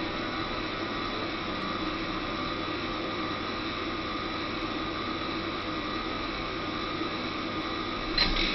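Electric bike hub motor spinning its wheel at speed on a test stand: a steady whir with thin, even whining tones. A brief sharp noise comes near the end.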